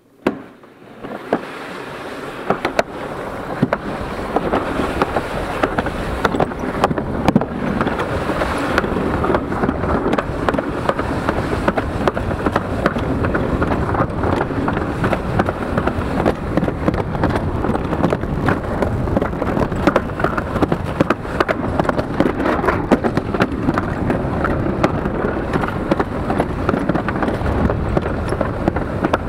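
Summer toboggan sled running down its trough track, a continuous rumbling and rattling full of quick clacks and knocks. It starts quietly and builds up over the first two seconds or so, then stays at a steady loudness.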